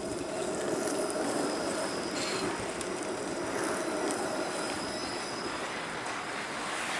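Bombardier Flexity Outlook low-floor streetcar rolling slowly past on snowy track, a steady running noise of wheels on rail, with a faint thin high squeal from the wheels on the curve of the loop.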